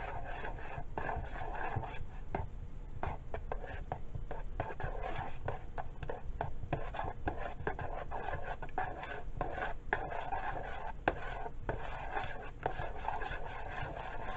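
A spatula stirring condensed cream of chicken soup thinned with water in a mixing bowl: repeated wet scrapes and light knocks against the bowl, coming in quick runs with short pauses.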